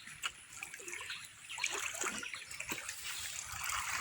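Water of a small stream trickling and gurgling.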